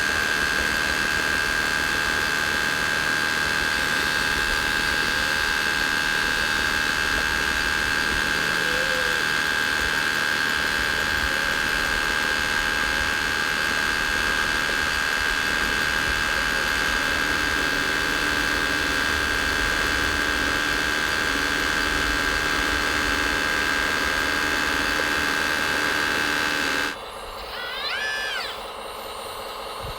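Electric motors of scale RC construction models running with a steady high whine; about 27 s in it cuts off abruptly, and quieter motor whines rise and fall.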